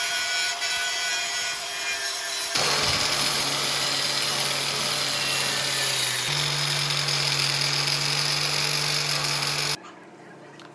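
A power tool running steadily on the moped's frame, its pitch shifting abruptly twice. It stops about a second before the end.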